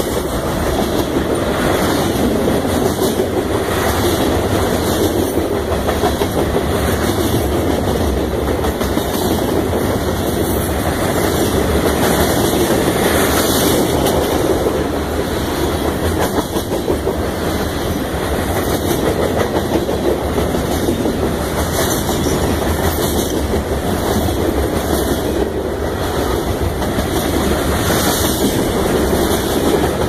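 Freight train cars rolling past close by, their steel wheels making a steady loud rumble on the rails with repeated clacks as the wheels pass over the rail joints.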